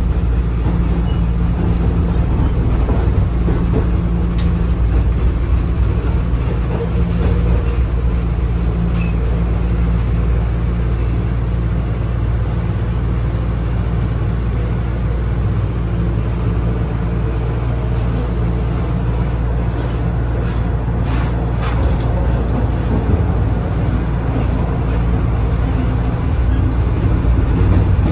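Toronto Rocket subway train running through a tunnel, heard from inside the car: a steady low rumble of wheels on rail and running gear, with a low hum underneath.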